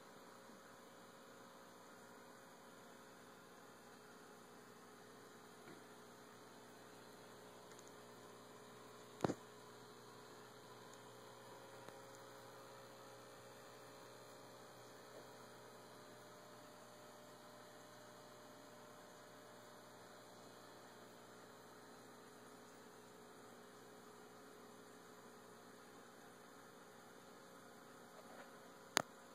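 Near silence: a faint steady electrical hum, broken by two sharp clicks, one about nine seconds in and one near the end.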